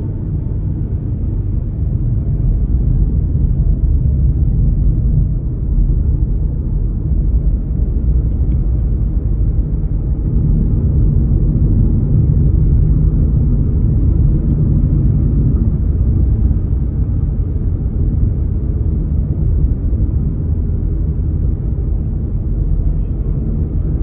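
Steady low rumble of road and tyre noise with engine drone inside the cabin of a car driving at speed.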